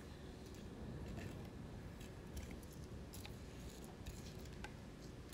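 Thick custard mixture slowly drizzled from a glass bowl over pie filling: a nearly silent pour, with a few faint light clicks over a low steady hum.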